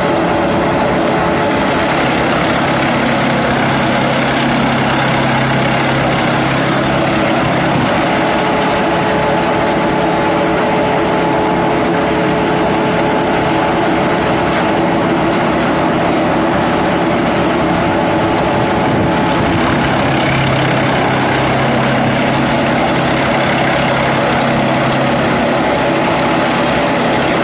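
Industrial wood chipper running: a loud, steady mechanical din with a low hum that fades out for a while and comes back.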